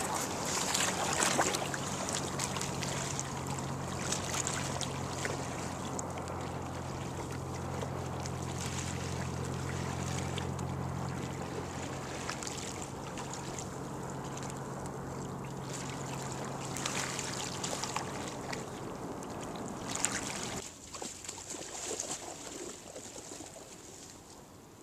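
Stand-up paddle strokes splashing now and then over water lapping against a paddleboard, with a steady low hum underneath for most of the time. About three-quarters through the hum and splashing stop and only quieter lapping water remains.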